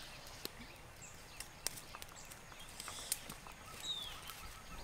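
Scattered sharp crackles and snaps from a small wood fire and from bare feet on dry leaf litter, with one short, falling bird call about four seconds in.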